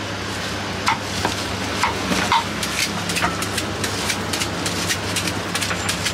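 Green fruit being cut and shredded by hand with a serrated julienne shredder: a string of short, sharp scraping strokes at irregular intervals, over steady street background noise.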